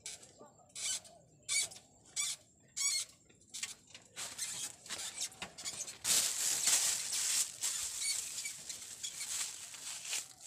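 Rustling and scratching close to the microphone: a run of short scratchy bursts, then a longer, louder rustle about six seconds in.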